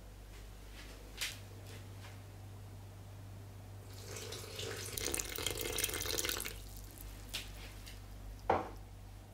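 Water poured from a glass into a glass mixing bowl of flour, a splashing stream lasting about two and a half seconds. There is a light knock about a second in and a sharper knock near the end.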